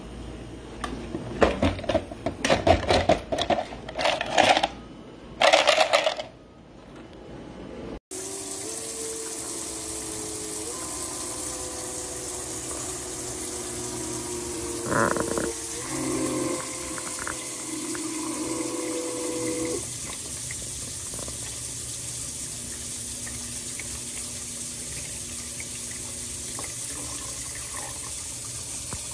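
HiCOZY countertop ice maker: about five seconds of loud, irregular clattering at the ice basket, then, after an abrupt cut, the machine running with a steady watery hiss and a low hum, with a single knock about halfway through.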